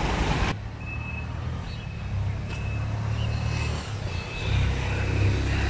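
Outdoor background rumble, with a loud hiss that cuts off abruptly about half a second in. Faint short high beeps repeat about once a second over the rumble.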